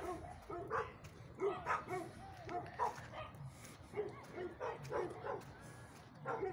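Dogs barking and yipping: a steady run of short, fairly faint barks, a couple every second.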